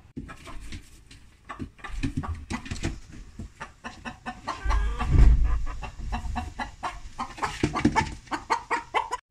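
A hen clucking and squawking as she is grabbed by hand, with scuffling and knocks in the wood shavings and a heavy low thump about halfway through.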